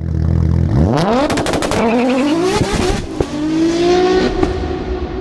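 Car engine accelerating hard, its pitch rising three times in a row as it climbs through the gears, with a quick string of sharp cracks about a second in; the sound thins and fades toward the end.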